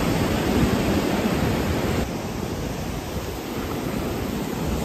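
Ocean surf breaking and washing up the beach in a steady rush, with wind gusting on the microphone; the level drops a little about two seconds in.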